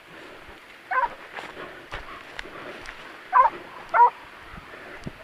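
Leashed hunting dog yelping three times in short wavering yips, one about a second in and two close together a little over three and four seconds in, giving tongue on a wild boar's scent trail.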